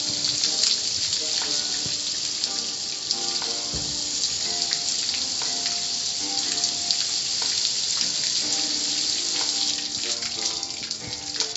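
Car wash water spray hissing steadily.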